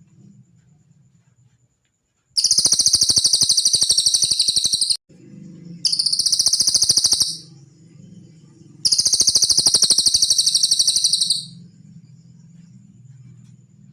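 Cililin bird singing: three loud, very rapid, high-pitched trills, each one to three seconds long and about a second apart, over a faint low background hum.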